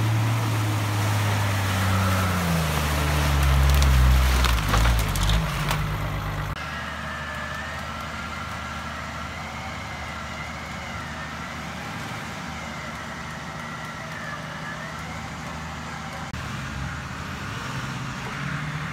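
An off-road 4x4 engine revving hard as it ploughs through a muddy, water-filled track, its pitch climbing, with mud and water splashing. After an abrupt cut about six seconds in, engines run steadily and more quietly further off, with a faint wavering whine.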